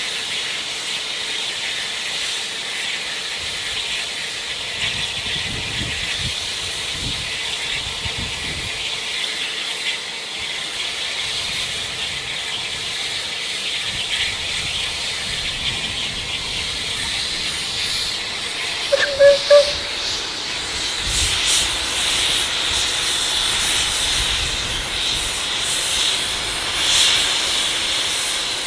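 Steam locomotive hissing steadily as steam escapes, growing louder and rougher over the last third. About two-thirds through, three short pitched toots sound in quick succession.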